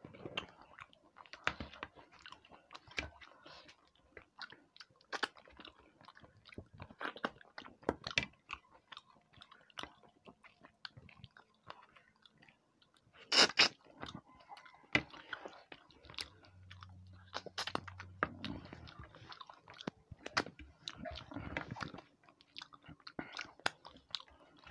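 Close-up chewing of a person eating rice and tengra catfish curry by hand, many small irregular clicks, with one louder sharp click about halfway through.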